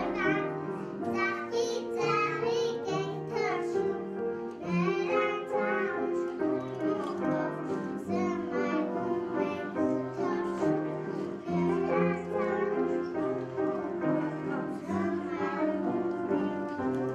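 Young children singing a song over instrumental accompaniment.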